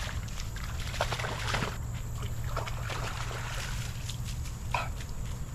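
Mini labradoodle puppy splashing through shallow creek water, in quick irregular splashes, over a steady low rumble. A brief squeak comes about three-quarters of the way through.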